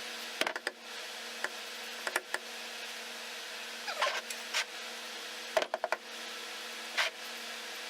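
Scattered clicks and taps of hand tools working the cover bolts on a Jeep Dana 30 front differential, with a quick run of four clicks a little past halfway, over a steady low hum.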